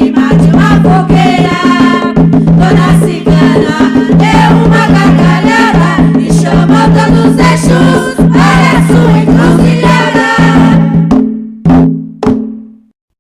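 Umbanda ponto music: percussion with singing voices, ending on two final strikes near the end before the track stops.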